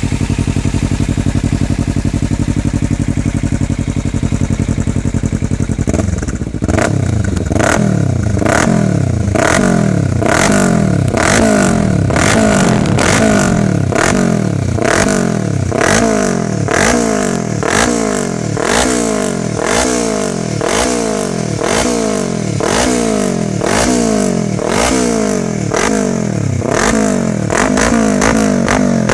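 2013 Kawasaki Ninja 300's parallel-twin engine breathing through a Remus Okami aftermarket exhaust, idling steadily, then from about six seconds in blipped over and over in quick free revs that rise and fall, about one a second.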